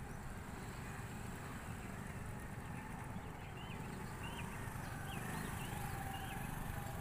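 Scooter engines running at low speed as the riders circle in figure-eights, a steady low rumble. A few short high chirps come through about halfway in.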